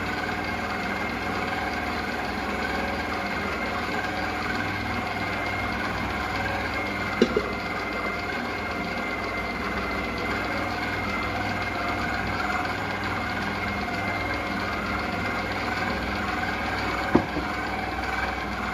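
Freestanding stand mixer running steadily at a low speed, mixing flour, salt, yeast and water into bread dough. Two short sharp knocks stand out over the hum, about ten seconds apart.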